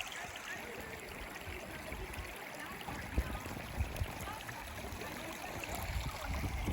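Shallow river water flowing over rocks, a steady rush, with a few low thumps about three and four seconds in.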